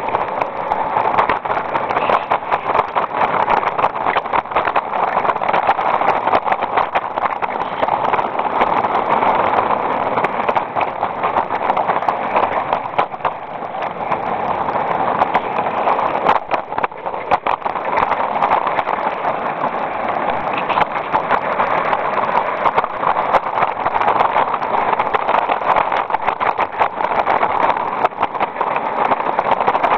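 Small live-steam garden railway locomotive running along 45mm-gauge track: a steady hissing run with many quick clicks from the wheels on the rails.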